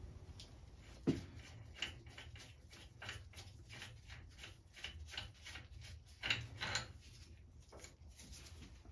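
Faint, irregular metallic clicks and taps from a Centec 2B milling machine's horizontal arbor and drawbar being handled and turned by hand, with a few sharper knocks about a second in and again about six and a half seconds in.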